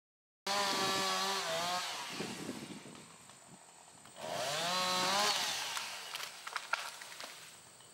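Chainsaw running in two bursts, about half a second in and again about four seconds in, its engine pitch dipping and rising as it cuts into standing trees for hinge cuts, then dying down after each burst. A few sharp cracks come near the end.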